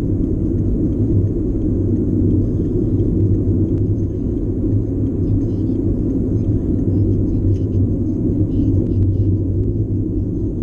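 Steady road noise inside a car cruising at highway speed: tyres and engine making a constant low rumble with a steady hum underneath.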